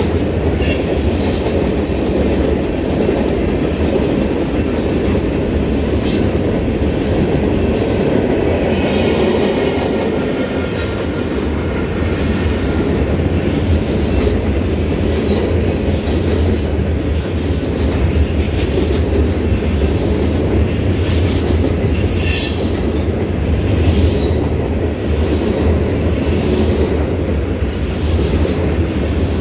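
Long freight train of covered hoppers and tank cars rolling past close by: a loud, steady rumble of steel wheels on rail, broken by short clicks as wheels pass over rail joints. A thin wheel squeal comes in faintly about nine seconds in.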